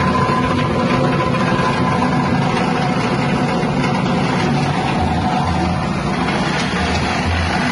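Small 6.5 hp petrol engine driving a grass chopper machine, running steadily.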